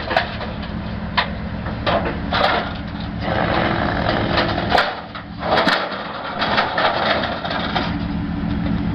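Pickup truck's engine running steadily as the truck backs down the steel loading ramps of a car-carrier trailer, with repeated clanks and knocks from the ramps under the tyres.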